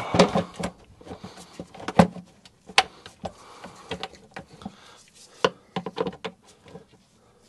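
Plastic engine cover being set back in place and its fasteners turned with a flathead screwdriver: scattered plastic clicks and knocks with rustling between, the sharpest about two seconds in, again just before three seconds and past five seconds.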